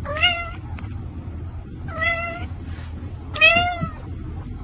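A cat meowing three times, each meow about half a second long, rising and then falling in pitch; the third is the loudest.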